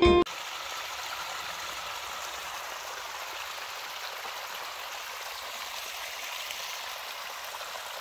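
A small trickle of spring water running over stones and soil, a steady gentle splashing hiss. Guitar music cuts off right at the start.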